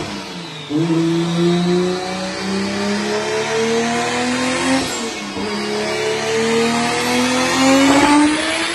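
Toyota Mk4 Supra's built single-turbo 2JZ-GTE 3.0 L inline-six at full throttle on a chassis dyno, revving up through the gears. The pitch climbs, drops at a shift about a second in and again about halfway, then climbs high once more near the end.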